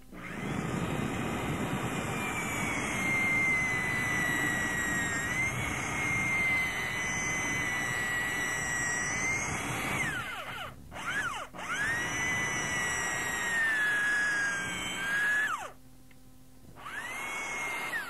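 Electric power drill running at speed with a steady high whine, released so that it spins down about ten seconds in, then triggered again. It spins down once more near the end and briefly starts up again.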